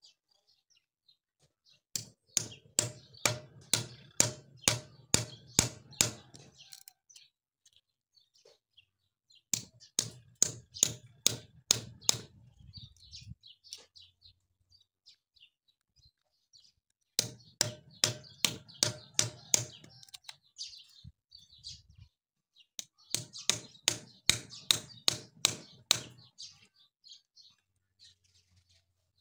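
Hammer striking a knife blade set into a wooden hoof block screwed to a cow's claw, driving the blade through the wood to cut the block away. Four bursts of sharp knocks, about two a second, each knock with a short hollow ring, with pauses between the bursts.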